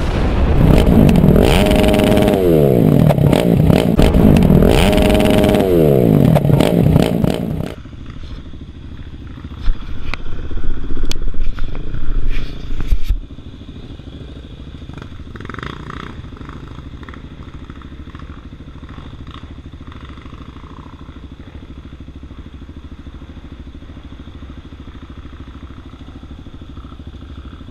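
About eight seconds of loud intro music with rising and falling sweeps, cut off suddenly. Then single-cylinder trail motorcycles running slowly and idling, heard from a helmet camera, with a few seconds of loud clatter and rattling partway through.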